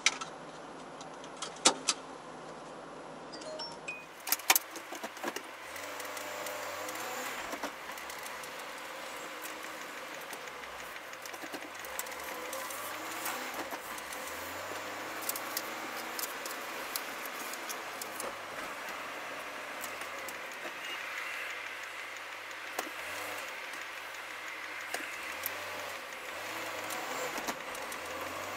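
Vehicle running as heard from inside, with steady road and tyre noise and a low engine note that rises and drops as it pulls away and changes gear. A few sharp clicks and rattles come in the first few seconds.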